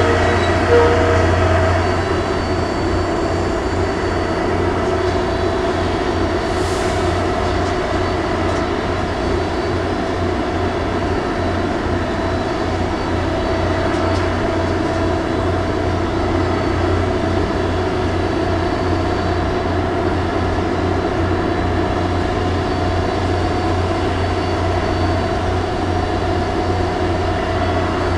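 Dockside grab crane's winch machinery running with a steady low hum and drone while the clamshell bucket is swung and opened.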